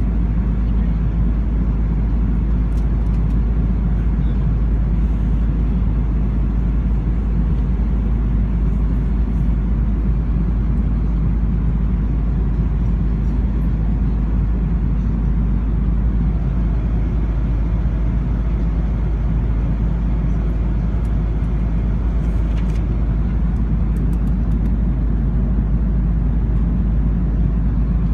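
Steady cabin noise of an aircraft in cruise flight: a constant low drone of engine and airflow that does not change.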